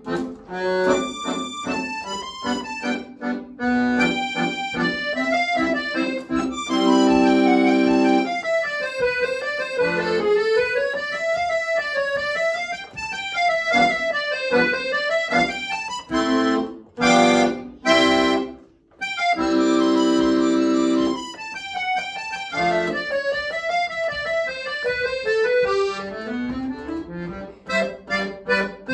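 Piano accordion played solo: fast running melody lines that sweep up and down over bass-and-chord accompaniment, broken by loud held chords about seven seconds in and again around twenty seconds, with a brief break just before the second.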